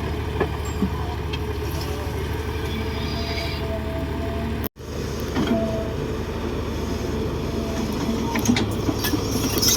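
Komatsu D58 crawler bulldozer's diesel engine running steadily, with some metallic clicking near the end. The sound cuts out for an instant about halfway through.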